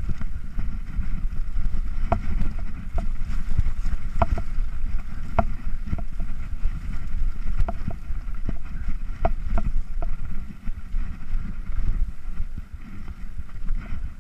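Mountain bike descending a rough dirt downhill trail. The tyres rumble and wind buffets the microphone, with frequent sharp, irregular clicks and clatters as the bike rattles over rocks and roots.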